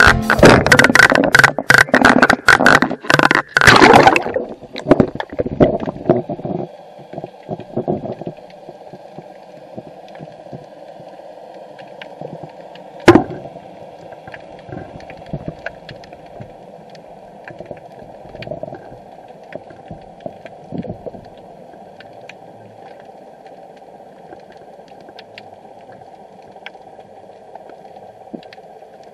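Water splashing and churning as an underwater camera is lowered through the sea surface, dying away over the first several seconds. Then comes a muffled underwater sound, a steady dull hum with scattered faint clicks and one sharp knock about 13 seconds in.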